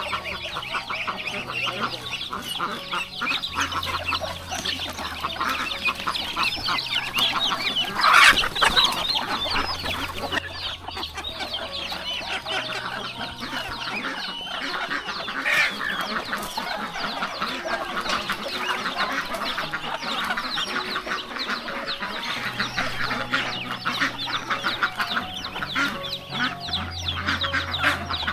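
A flock of chickens clucking and chirping busily as they crowd round to be fed, with one louder squawk about eight seconds in.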